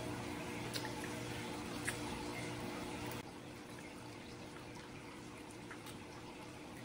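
Wet chewing and sucking on adobo chicken feet, with a few small sharp clicks. A steady low hum underneath cuts off about three seconds in.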